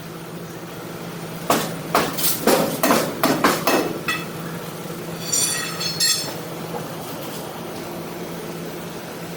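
Metal clanking, about eight quick knocks in a row, then a brief high metallic squeal, over a steady engine hum.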